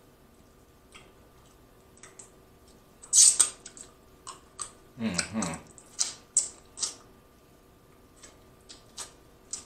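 Close-up eating sounds of a person sucking boiled crawfish: a loud wet slurp about three seconds in, a longer suck around five seconds, then a run of sharp lip smacks and clicks.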